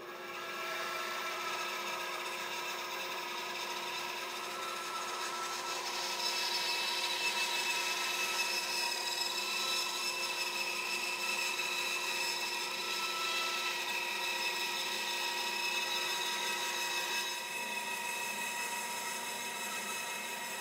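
Band saw resawing a thick plank on edge into a thin veneer slice: the blade cutting steadily through the wood, a steady whine with several tones over the saw's running noise. It grows louder a few seconds in and eases off a little near the end.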